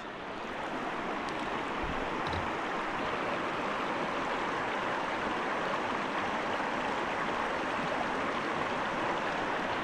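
River water rushing steadily over rocky shoals.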